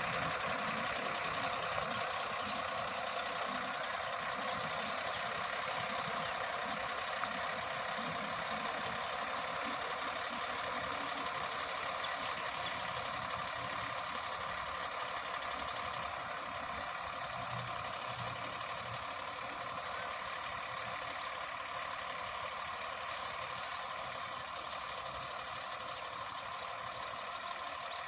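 The six-cylinder diesel engine of an Ashok Leyland 1618 tipper lorry, heavily loaded, running steadily at low revs as the truck creeps slowly along.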